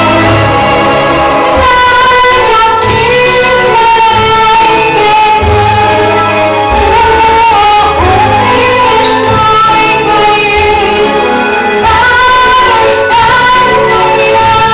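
A 12-year-old girl singing a song into a microphone over loud instrumental accompaniment with a bass line that changes note every second or two.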